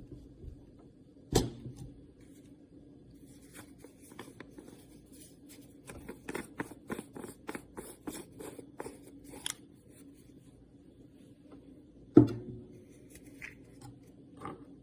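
Handling noises: a sharp knock about a second in and another near the end, with a quick run of clicks and taps in between.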